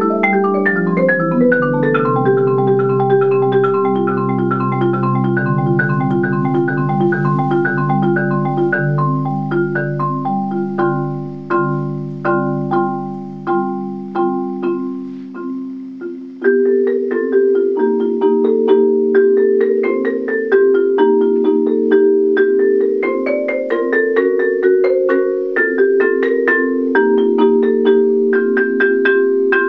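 Four-mallet solo on a Musser concert marimba: rapid flowing strokes across the low and middle range. About ten seconds in it thins to separate notes that ring and fade, then returns louder and busier about sixteen seconds in.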